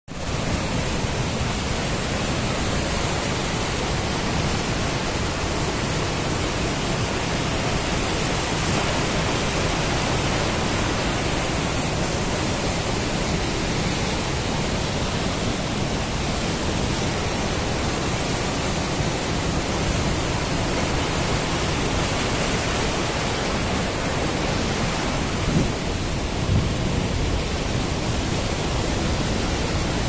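Steady rush of the Krimml Waterfalls, the Krimmler Ache crashing down a rocky cascade in a dense, unbroken noise of falling water and spray.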